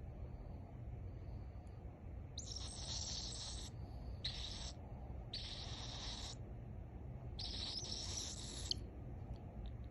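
A pet bird chattering in four short, raspy bursts, its attempts at talking, over a steady low hum.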